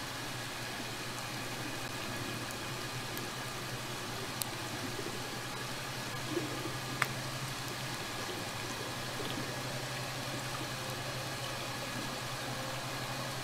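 Steady underwater ambient hiss with a low steady hum, picked up by an underwater camera's hydrophone. Two sharp isolated clicks stand out, a few seconds apart.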